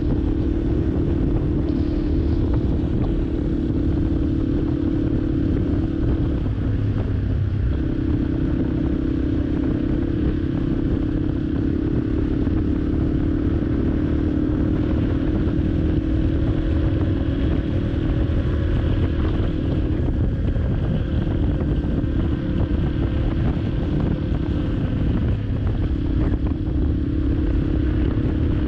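Yamaha Serow 250's air-cooled single-cylinder engine breathing through an FMF PowerCore 4 aftermarket exhaust, pulling steadily while the bike is ridden at road speed. The engine note falls away briefly about seven seconds in and eases off twice more later, as the throttle is rolled back.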